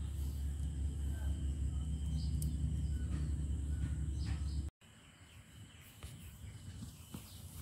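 Outdoor ambience: a low rumble for the first few seconds, then quieter after a cut, with a steady high drone of insects throughout and a few faint clicks.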